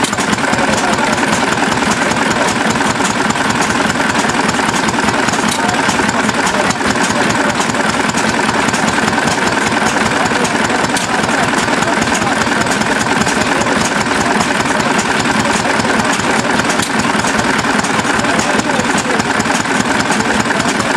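Antique hit-and-miss stationary gas engines running steadily, including a hopper-cooled Sandwich engine.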